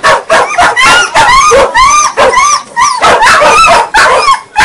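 Dog barking in a rapid run of high-pitched yips, about two or three a second, starting abruptly.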